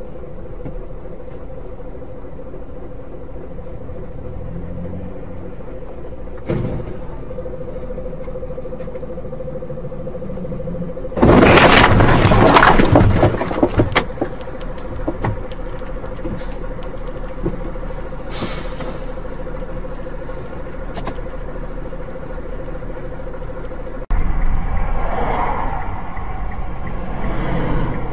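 Dashcam audio of a car on the road: steady road and engine noise with a thin steady hum. About eleven seconds in comes a sudden, very loud crash that lasts a couple of seconds and trails off in crackles and knocks, typical of a collision. About 24 seconds in the sound cuts to a louder recording of another vehicle.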